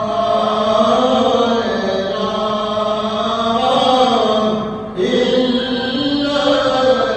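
Sufi zikr: a voice chanting the devotional remembrance in long, drawn-out tones over a steady low drone, breaking off briefly about five seconds in before carrying on.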